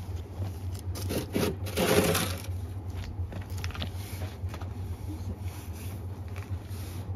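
Crunching, scraping sounds on snow-covered gravel and stone: a short one about a second in and a louder, longer one around two seconds, then a few faint ticks, over a steady low rumble.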